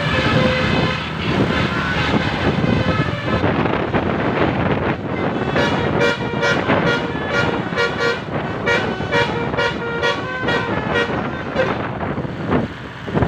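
Bus telolet basuri musical horn playing a tune over road noise. It starts with held multi-note tones, then from about five seconds in plays a fast run of short toots, about three a second.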